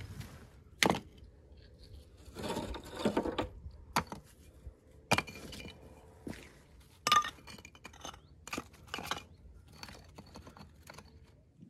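Rough field stones knocking and scraping against each other as they are lifted from a rubble pile and laid around a well to build up its wall. There are several sharp clacks of stone on stone, loudest about a second in and about seven seconds in, with grating and crunching between them.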